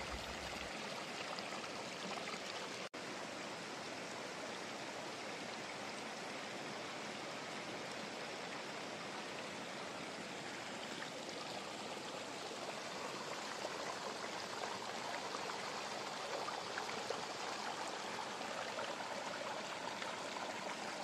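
Steady, even background hiss, with a brief dropout about three seconds in.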